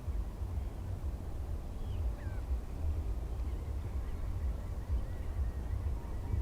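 Steady low rumble, with faint, short bird calls over it, one falling call about two seconds in and several more near the end.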